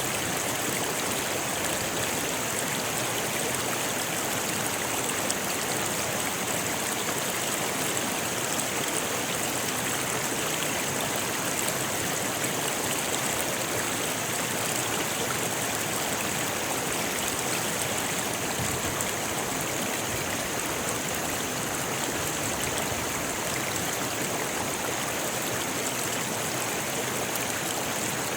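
A rocky river rushing steadily over stones, a continuous even water noise with a bright hiss.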